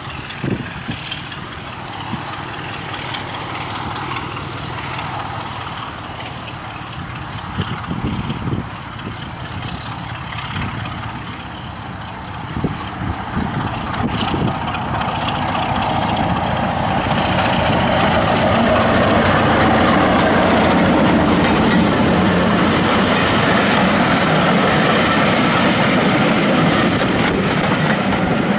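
Class 33 diesel locomotive hauling a passenger train. Its engine grows steadily louder as it approaches and passes about halfway through, followed by a loud, steady rumble of the coaches rolling by on the track.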